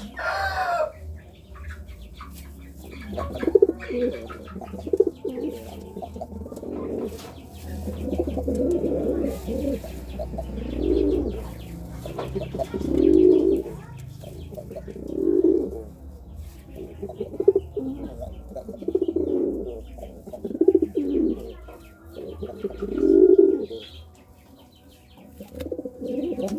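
Domestic pigeon cooing in courtship: a series of low coos repeating about every two seconds.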